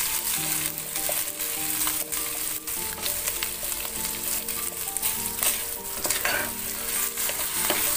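Meat and onion frying in oil in a pan, sizzling steadily, while a wooden spatula stirs in pepper paste with repeated scraping strokes against the pan.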